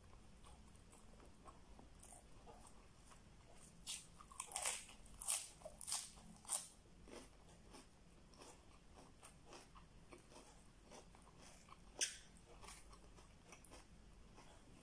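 Close-miked eating sounds: chewing and biting, faint at first, then a run of crisp crunches about four to seven seconds in and one more sharp crunch near the twelve-second mark.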